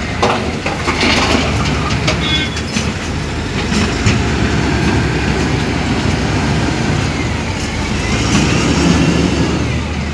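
Heavy diesel machinery running steadily, the excavator named as a Hyundai 210, with several metallic clanks and knocks in the first few seconds and a brief high squeal near two seconds.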